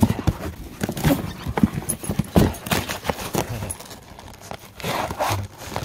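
A husky tearing open a cardboard shipping box with its teeth and paws: irregular knocks and scrapes on the carton with cardboard ripping.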